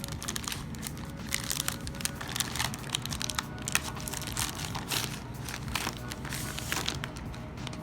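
Packaging being torn open and crinkled by hand, with many irregular crackles and rustles as a phone case is unwrapped.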